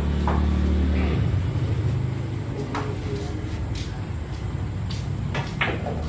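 A steady low engine hum that drops and changes note about a second in, with several short sharp knocks scattered through it, three of them close together near the end.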